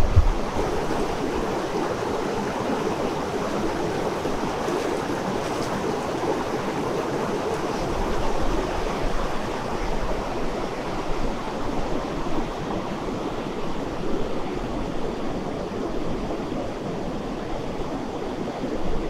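Mountain river rushing over rocks, a steady, even noise. A brief low thump right at the start.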